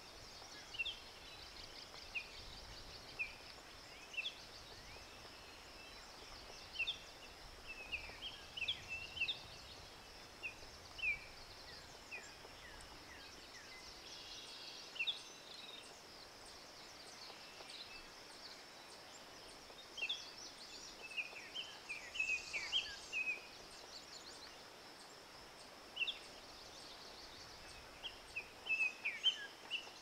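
Forest nature ambience: scattered short, high bird chirps that come in small bunches, over a steady high-pitched drone.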